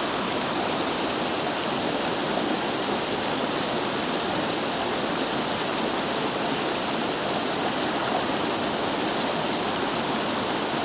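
Fast-flowing river rushing over rocks, a steady, even rush of water with no let-up.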